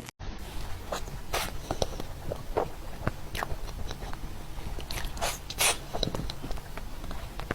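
Close-miked mouth sounds of someone eating cake: wet chewing with a scatter of short, uneven smacks and clicks.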